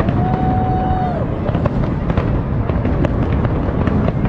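Aerial fireworks display: a continuous low rumble of bursting shells, dense with rapid cracks and pops. Near the start a held tone sounds for about a second and drops off at its end.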